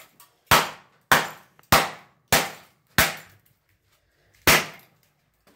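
A golf club striking a broken Kindle e-reader lying on a board: six sharp hits, about two a second, with a pause before the last one.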